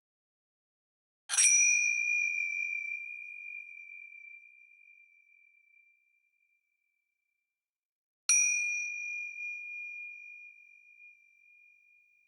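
A small bell struck twice, about seven seconds apart, each a single high-pitched ding that rings on and fades slowly.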